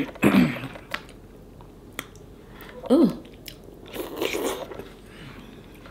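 Close-miked mukbang eating sounds: a woman eating fufu and egusi soup with her fingers, with wet mouth smacks and chewing. Two short hums with falling pitch come just after the start and about three seconds in, and a longer wet stretch of chewing follows at about four seconds.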